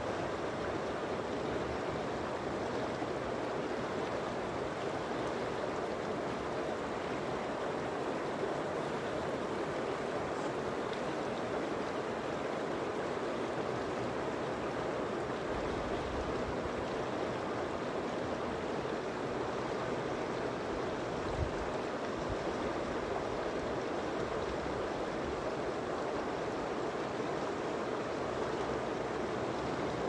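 Shallow river running steadily over and around rocks: an even rushing of flowing water.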